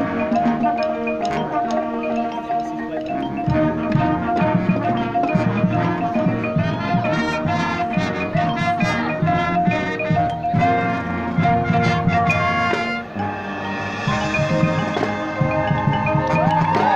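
High school marching band playing, with the pit's marimbas and other mallet percussion prominent over held band notes.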